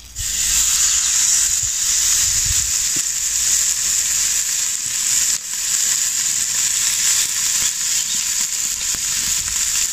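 Olive-oil-marinated roast beef searing on a hot charcoal grill grate: a steady sizzle that starts suddenly as the meat goes down, with one brief dip about five seconds in.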